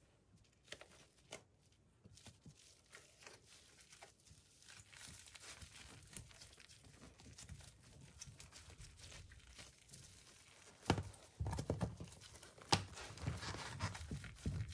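Food-preparation handling sounds: irregular crinkling and tearing with scattered clicks. The handling grows busier and louder in the last few seconds, with a couple of sharp knocks.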